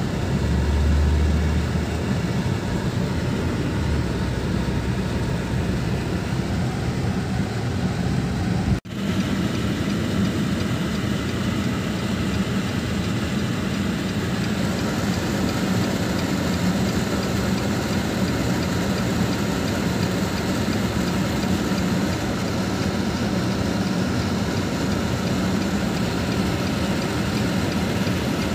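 Steady engine and road noise inside the cabin of a moving car. It breaks off for an instant about nine seconds in, then carries on the same.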